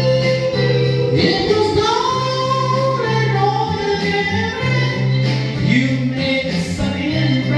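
Men singing into microphones over a backing track with a steady repeating bass note; the vocal line holds long notes that slide from one pitch to the next.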